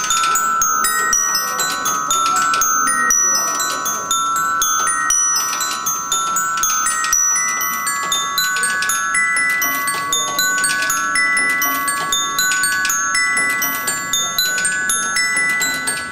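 Ball bearings dropped onto the tuned bars of a mechanical glockenspiel. They ring out a dense, steady patter of short high notes over a few tones that ring on longer.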